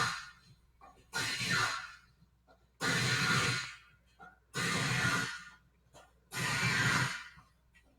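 Heavy rhythmic breathing close to the microphone: a long breath about every second and a half to two seconds, each separated by a short quiet gap.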